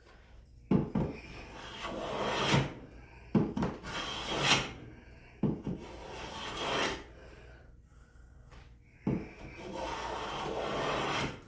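Four strokes of a Craftsman No. 5 jack plane along a wooden board, each starting with a knock as the plane meets the wood and followed by a hissing cut. The blade is cutting properly and lifting continuous shavings.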